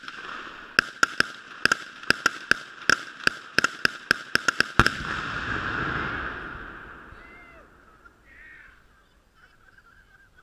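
A rapid string of gunshots, about three a second, ends in one big blast about five seconds in as the Tannerite packed in the target boat detonates, followed by a long rumble rolling away over the lake. A few bird calls follow as it fades.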